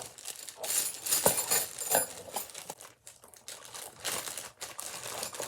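Packaging crinkling and rustling as hangers and their screw-in hooks are handled, with several sharp clicks.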